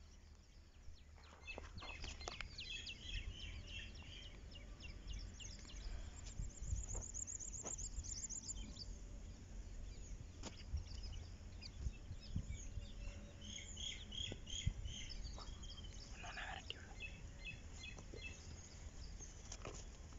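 Small birds chirping in short repeated calls, with a fast high trill about seven seconds in, over a low rumble and scattered faint clicks.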